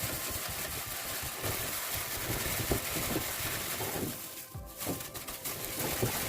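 Hands rubbing and working granulated sugar into melted butter in a bowl: a grainy rustle with irregular strokes as the mixture is creamed until it whitens.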